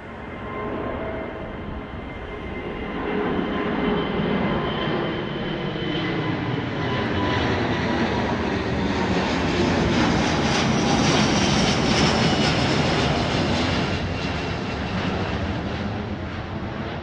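Airbus A330-900neo's two Rolls-Royce Trent 7000 turbofans at takeoff climb power passing overhead: the jet noise swells over the first few seconds with a whining fan tone, is loudest as the airliner goes directly above, and begins to fade near the end.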